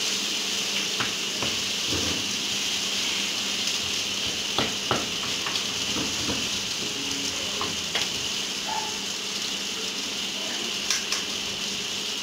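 Sliced onions sizzling in hot oil in a kadai over a high gas flame, a steady hiss, with a spatula stirring and a few sharp clicks of it against the pan.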